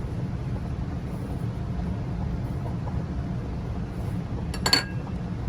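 Steady low rumble with one short, sharp metallic clink a little before the end.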